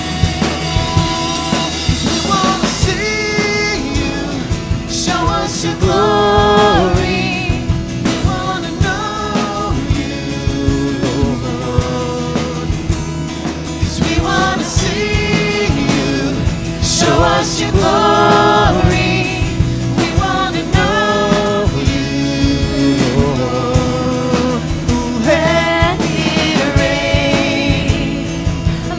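Live worship band music with a drum kit, and a voice singing over it without clear words.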